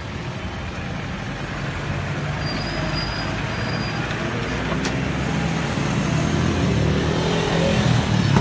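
A box truck's engine runs close by, with street traffic, growing steadily louder toward the end. There is one sharp click about halfway.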